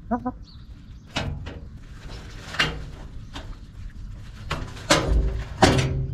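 A hen in a metal nesting box: a couple of short soft clucks, then a string of loud, harsh squawks, the loudest near the end.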